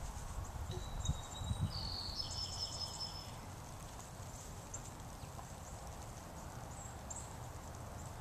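Quiet outdoor ambience in falling snow: a steady low rumble, with a few thin, high whistled notes in the first three seconds and a couple of faint soft thumps.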